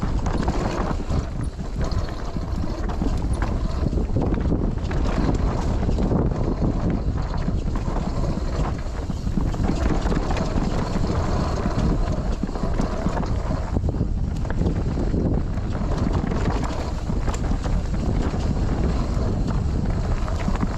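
Mountain bike riding down a rough bike-park trail: tyres on dirt and stones and the bike rattling with a dense run of small knocks, with wind on the microphone.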